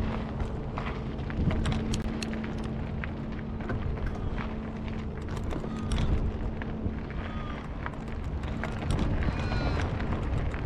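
Footsteps crunching on gravel over a steady low hum. Crows caw a few times near the end.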